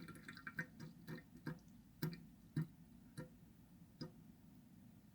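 Water dripping into a homemade miniature toilet after a flush, faint single drops that slow from several a second to about one every half second to second, the last about four seconds in.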